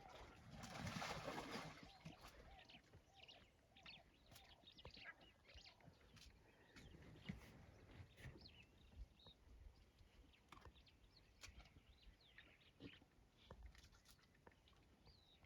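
Near silence with scattered faint, short bird chirps and calls. A brief rushing noise about a second in.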